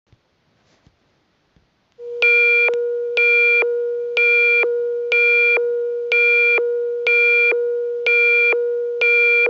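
Emergency alert tone: a loud, steady low tone starts about two seconds in, with a sharper, higher beep sounding over it about once a second, eight times. It signals that a new emergency broadcast message is coming.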